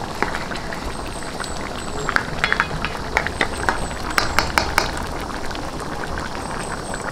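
Thick coconut-cream sauce of a pineapple chicken stew simmering in a pan, bubbling with many small pops, stirred now and then with a spatula. The sauce has reduced until thick, with oil beginning to separate out.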